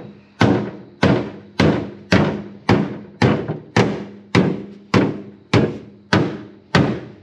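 Steady hammer blows on the MG Midget's sheet-steel body, nearly two a second, each ringing briefly. A bent panel is being beaten straight against a heavy hammer held behind it as a dolly.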